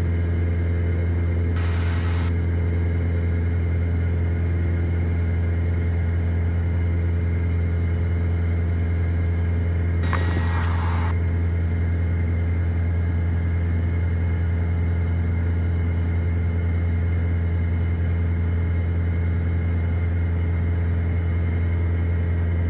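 Steady drone of a Piper PA46 Malibu's piston engine and propeller heard in the cockpit during a climb. Two short bursts of hiss break in, about two seconds in and about ten seconds in.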